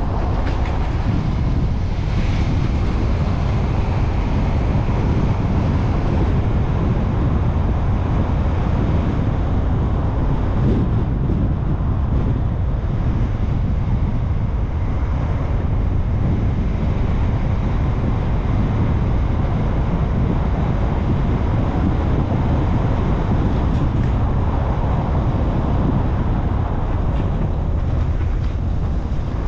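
Steady noise of a car on the move: a deep rumble of tyres and engine mixed with wind, unbroken and without distinct events.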